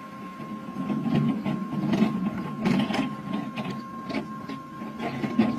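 Steel wheels of a small gravity-driven rail cart rolling along narrow-gauge track, a rumbling clatter with irregular clicks and knocks that grows louder over the first couple of seconds as the cart approaches.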